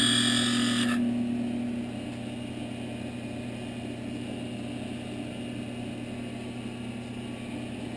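A point tool cutting into spinning wood on a lathe makes a high scraping whine that cuts off abruptly about a second in as the piece parts off. After that the lathe's motor hums steadily, quieter after about two seconds.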